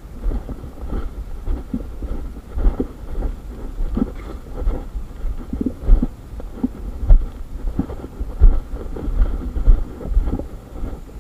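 Irregular low thuds and rumble of a handheld camera jostled by the walker's steps, with footfalls and handling knocks on the microphone; several sharper knocks stand out in the second half.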